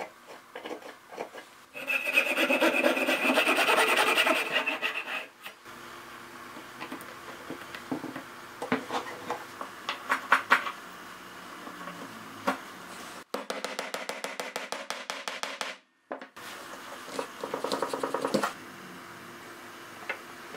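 Wooden dowel being worked: stretches of rasping, saw-like scraping of wood on wood, the loudest a few seconds in, broken by a few sharp light taps.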